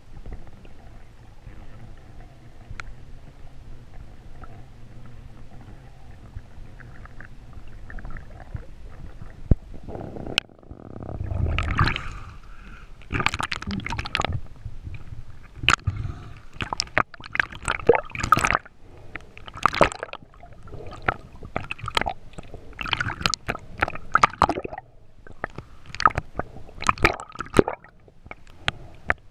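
Water sounds around an underwater camera. A steady low wash for about ten seconds, then a surge, then irregular splashy, gurgling bursts every second or two as the spearfisher moves through the water.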